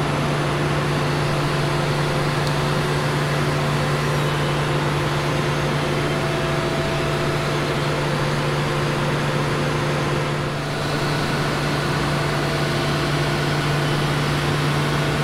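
A combine running steadily with a constant low hum while its power-folding grain tank covers close and open again. The tone shifts slightly about ten and a half seconds in.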